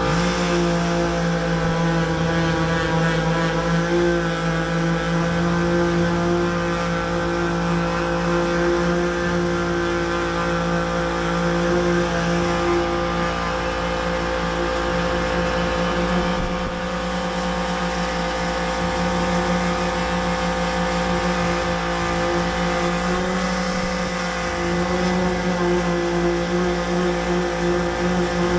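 A power sander running steadily on the truck's paintwork, with a constant motor hum that wavers slightly as it bears on the panel.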